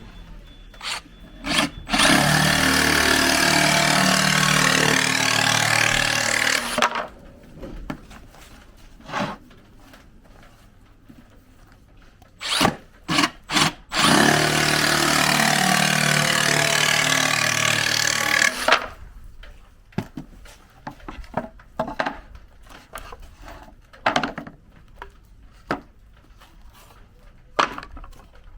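Makita JR187DZ 18V cordless reciprocating saw cutting through 12 mm plywood in two runs of about five seconds each. Sharp knocks and clatter from the board being handled come before, between and after the cuts.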